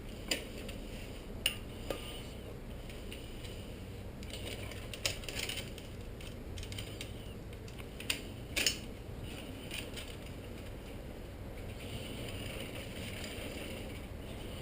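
Scattered metallic clicks and clacks from a recumbent trike's chain and drivetrain as the chain is worked back onto the front chainring, with a few sharper knocks among quieter handling sounds.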